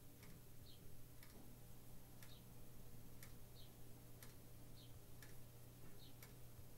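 Near silence: quiet room tone with faint, regular ticks about once a second over a low steady hum.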